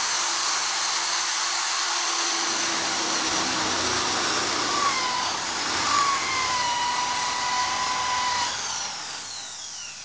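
Electric hand drill boring into a wooden panel, running steadily with a high whine at times, then released near the end and spinning down with a falling whine.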